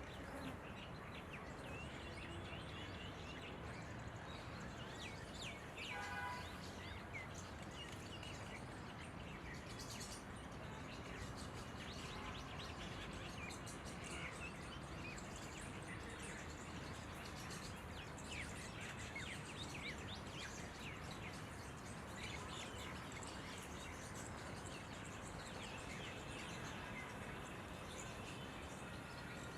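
Red-vented bulbuls chirping, many short calls over a steady background hiss, with one fuller call about six seconds in.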